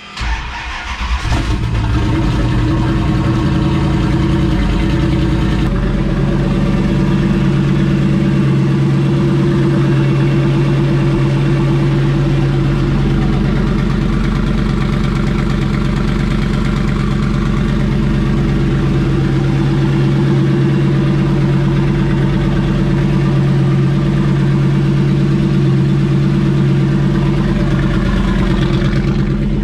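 Turbocharged Hemi V8 cranking and catching in the first second or two, then idling steadily. It runs on all eight cylinders now that a loose pushrod has been reseated, with an even idle that is not loping.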